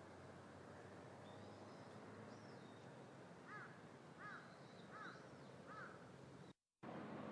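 A crow cawing four times at an even pace, over a faint steady background rumble with thin high chirps of other birds. The sound drops out completely for a moment near the end.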